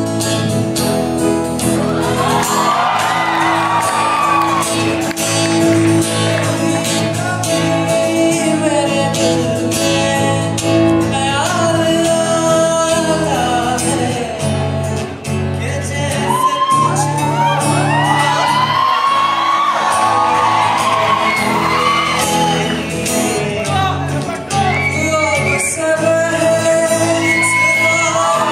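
Live song: an acoustic guitar accompanying male voices singing into microphones, in a large hall.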